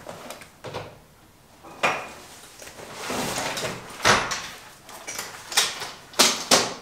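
Fabric electrician's tool bag being handled and opened: cloth rustling with several sharp knocks and clicks, the loudest near the end.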